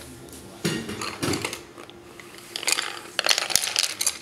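Colored pencils clattering and rattling against each other as a baby's hands rummage through a pile of them: a short run of clicks about a second in, then a longer, louder flurry of clicks near the end.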